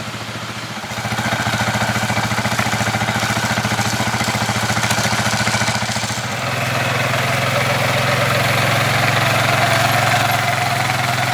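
Engine of a machine working the field, running steadily; it gets louder about a second in and settles onto a stronger, slightly different note about six seconds in.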